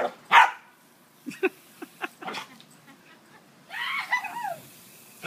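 Small dog barking and yipping in short bursts as it lunges at the spray from a garden hose. The loudest bark comes about half a second in, and a run of higher, pitch-bending yips follows about four seconds in.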